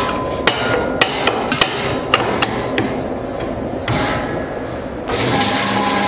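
Sharp metallic knocks and clinks, about two or three a second, as the stirrer fitting is worked on the stainless-steel pan lid of a popcorn machine. About five seconds in, a steady low motor hum starts up: the machine's stirrer drive running.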